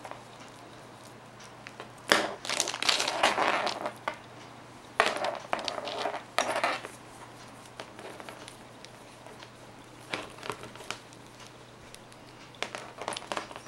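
Rustling and rubbing of a micro USB cable being handled and uncoiled in the hands, in several noisy bursts, the longest and loudest about two seconds in. A faint steady low hum runs underneath.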